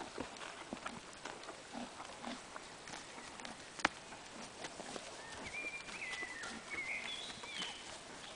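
Horses moving about on grass, with scattered soft hoof steps, rustling and small clicks, and one sharp click about four seconds in. A high whistled call of a few stepped notes sounds from about five and a half seconds until near the end.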